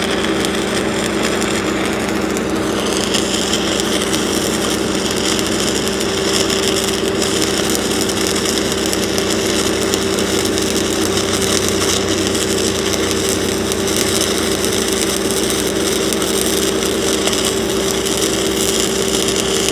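Shielded metal arc (stick) welding on 6-inch schedule 80 steel pipe, an 8010 rod burning in a downhill cap pass: the arc sizzles evenly and without a break, with a steady hum underneath.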